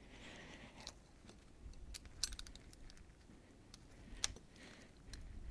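Faint metallic clicks and clatter of hand tools being handled: a half-inch torque wrench being fitted into the handle of a swage clamp crimping tool, with a few sharper clicks about two seconds in and again about four seconds in.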